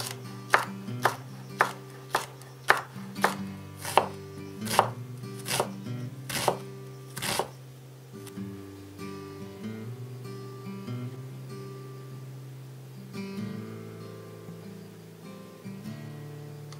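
A kitchen knife chopping on a cutting board: about a dozen sharp strokes, roughly two a second, that stop about halfway through. Soft acoustic-guitar music plays underneath and continues alone after the chopping stops.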